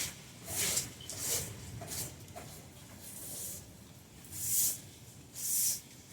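Broom sweeping: a series of short swishing strokes, roughly one a second, each a brief rush of hiss.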